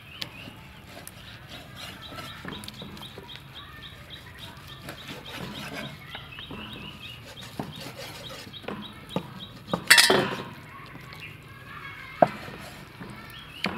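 Cleaver knocking through raw beef onto a wooden chopping board, with birds chirping rapidly and chickens clucking around. A loud, sharp burst about ten seconds in and a single hard knock a little later.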